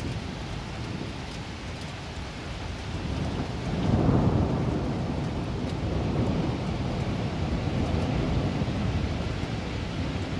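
Thunder over steady heavy rain: a deep rumble builds about three seconds in, peaks a second later and rolls on for several seconds, slowly fading.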